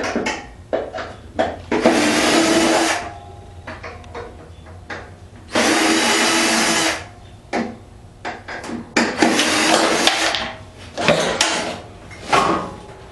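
A power drill running in three short bursts of about a second each, backing out the screws that hold a dehumidifier's outer cover. Clicks and knocks of handling fall in between.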